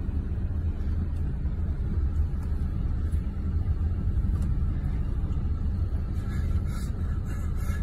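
Steady low rumble of a vehicle's engine and road noise, heard from inside the cab while driving.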